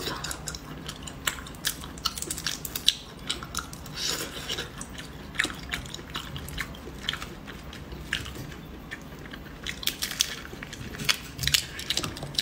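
Close-miked mouth sounds of someone chewing cooked red prawns: biting and chewing with many sharp, irregular wet clicks.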